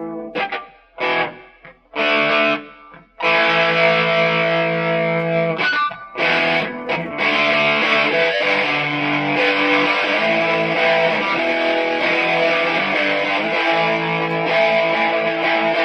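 Electric guitar played through a WIZZ Distortion pedal: a few short, cut-off chord stabs, then held distorted chords ringing on, with a brief break about six seconds in.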